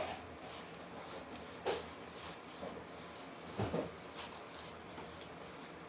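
Mouth sounds of eating a hard-shell taco: a few short chewing and smacking sounds, the loudest about three and a half seconds in.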